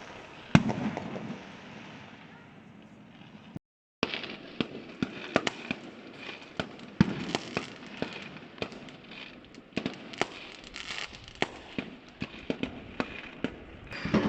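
Fireworks going off: one loud bang about half a second in, then, after a brief dropout, a dense string of sharp cracks and bangs, many overlapping.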